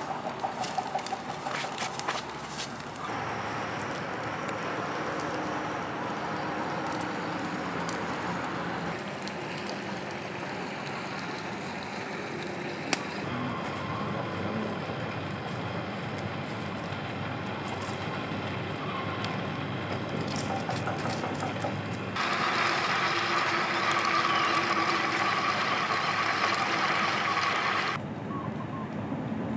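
Small wood and twig campfire crackling, with sharp pops in the first few seconds and a single loud snap about 13 seconds in. The steady background behind it changes abruptly several times.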